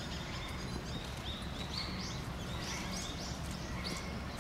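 Birds chirping: a run of short, high, rising notes, several a second, over a steady low background hum.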